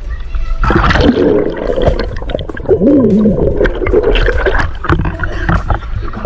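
Music playing over water splashing and gurgling in a swimming pool.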